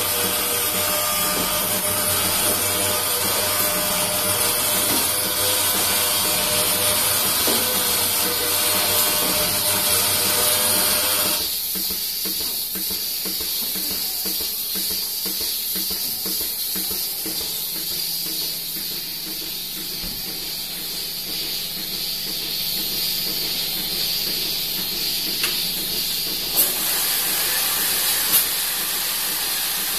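Lely A4 milking robot running while it milks a cow: a steady hiss of vacuum and air with a motor hum under it. About eleven seconds in, the sound drops to a thinner, quieter hiss, and a few short clicks come near the end.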